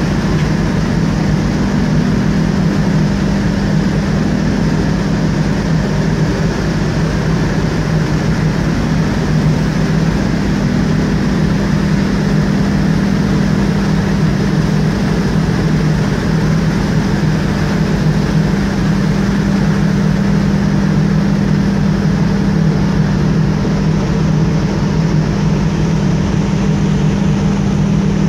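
Steady low drone of a large container ship's machinery heard on its deck, with a constant rushing hiss over it.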